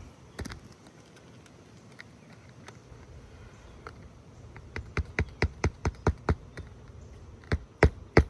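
Hammer driving roofing nails into an asphalt shingle. After a few seconds of only light taps, a run of sharp strikes comes about three a second, then a short break, and more strikes near the end.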